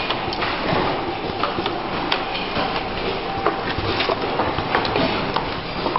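Automatic four-station soldering machine running: a steady mechanical noise with irregular clicks and clacks from its moving parts.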